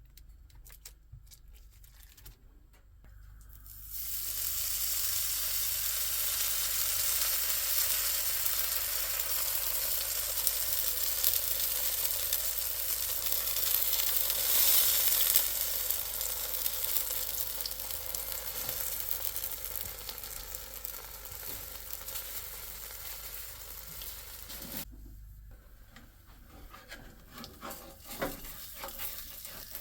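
Grilled ham and cheese sandwich frying in a hot pan, a steady sizzle that starts suddenly about four seconds in and cuts off suddenly near the end, leaving a few faint clicks.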